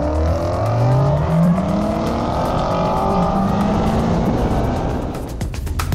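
Chevrolet Corvette V8 engine accelerating hard on the track, its pitch climbing and stepping back with gear changes.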